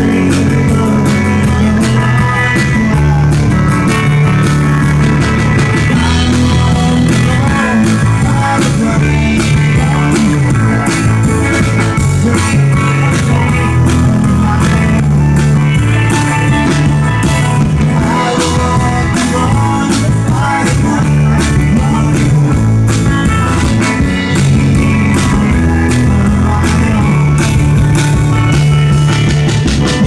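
Live band playing a rock number: drum kit keeping a steady beat under guitars and bass.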